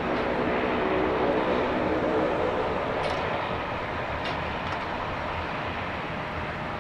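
A De Havilland Canada Dash 8 Q400 turboprop taxiing, its propellers droning with a steady hum. The hum fades over the first couple of seconds into even engine rumble.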